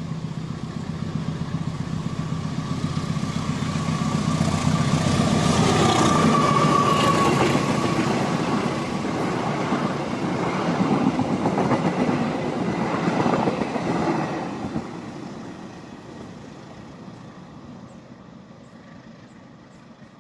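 CC 201 (GE U18C) diesel-electric locomotive hauling a passenger train past. The engine drone builds as it approaches and is loudest about five to seven seconds in, with a thin high tone as the locomotive goes by. The coaches' wheels then clatter over the rails, and the sound fades away as the train recedes.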